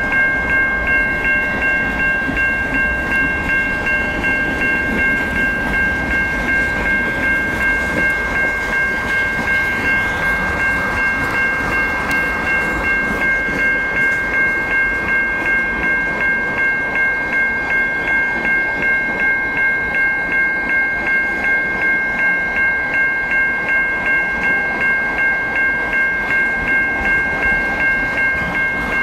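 Level-crossing warning bell ringing steadily at about two strikes a second, over the rumble and wheel clatter of a CN freight train's boxcars and tank cars rolling past.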